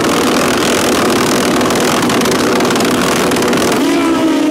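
Two Pro Street drag-racing motorcycles running loud and hard at high revs on the starting line. About four seconds in they launch, and the engine pitch climbs steadily as they accelerate away.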